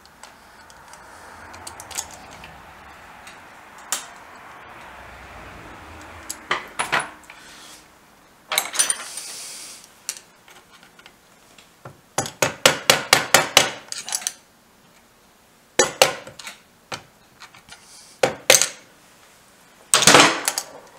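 Metal tools and parts clinking and knocking during hands-on assembly of a BSA C15T motorcycle gearbox: scattered single knocks, a quick run of about a dozen sharp taps near the middle, and a louder clatter near the end.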